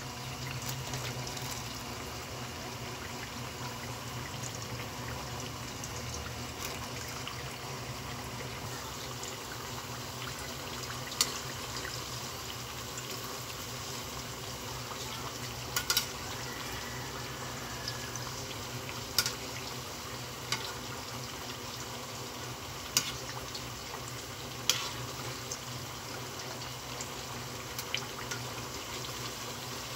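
Sweet potato chunks frying in a pan of hot oil: a steady bubbling sizzle, with a sharp pop every few seconds in the second half.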